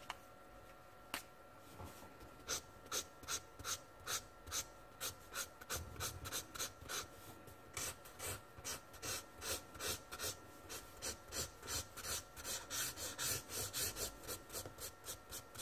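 Grey marker nib scratching across tan paper in quick short flicking strokes, about two or three a second, starting a couple of seconds in and running on. The nib is the marker's chisel (block) end.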